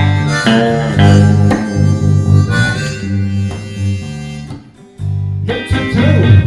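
Instrumental break of a blues-style song with no singing: a held, melodic lead line over guitar. The music drops out briefly near the five-second mark, then comes back in.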